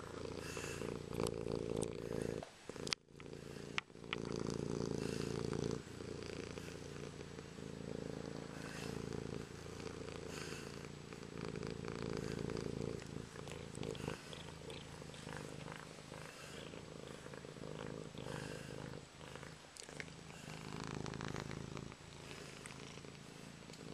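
Domestic cat purring steadily, close against the microphone, the purr swelling and easing every couple of seconds with its breathing. A few brief knocks come about three seconds in.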